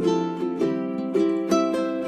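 Background music: a light plucked-string tune with a new note about every half second.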